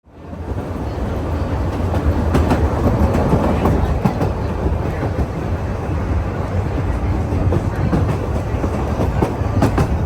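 Wooden carriages of the Sóller railway running along the track: a steady low rumble with rattling and the odd sharp click of the wheels over the rails, fading in at the start.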